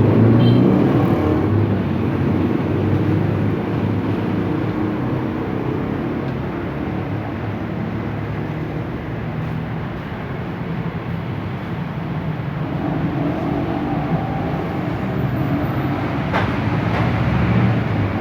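Bajaj CT100 motorcycle's freshly rebuilt single-cylinder four-stroke engine running. It is louder and revs higher at the start, eases off through the middle, and revs up again over the last few seconds.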